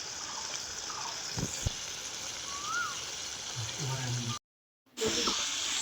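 Pot of taro greens with a hilsa head cooking over a clay stove, making a steady sizzling hiss with a few faint knocks. The sound cuts out for about half a second near the end.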